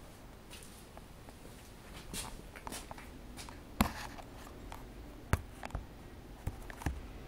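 Handling noise from a phone being moved around: scattered rustles and light knocks, with two sharper knocks in the middle.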